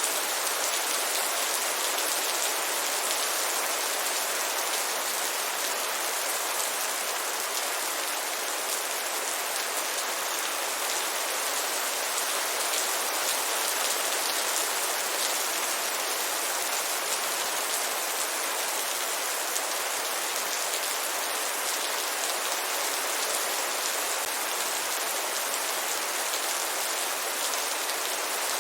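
Heavy rain falling steadily: an even hiss of countless drops with no let-up.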